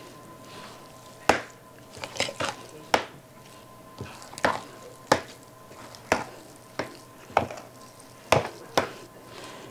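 A spoon stirring a stiff oat-cookie dough in a glass mixing bowl, knocking against the glass about a dozen times at uneven intervals, with a soft scraping between the knocks.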